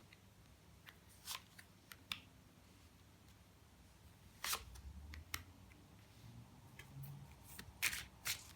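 Tarot cards being handled and laid down on a table, a few scattered soft taps and slides of card on card, the clearest about a second in, near the middle and near the end.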